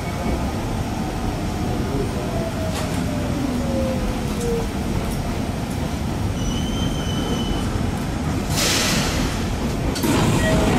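Electric commuter train heard from the cab, pulling into a station: a steady rumble with a motor whine falling in pitch as it brakes. About nine seconds in there is a short hiss of air. Near the end another train grows louder as it comes in on the next track.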